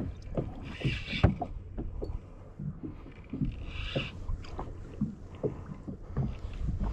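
Water slapping and knocking against the hull of a small fishing boat, in irregular low knocks, with two brief splashy rushes about one and four seconds in.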